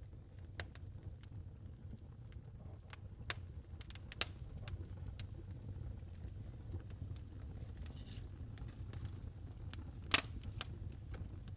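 Wood burning in a fireplace: irregular crackles and sharp pops over a steady low rumble, with the loudest pop about ten seconds in.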